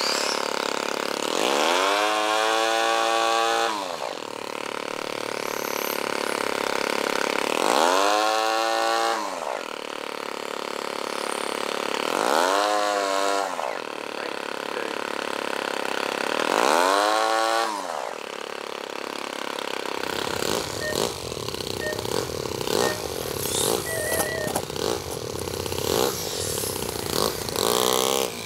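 Small two-stroke glow engine of a nitro RC motorbike (an O.S. 20 aero engine) revving up and dropping back four times, about every four to five seconds. After about twenty seconds the sound turns rougher, with rapid crackling.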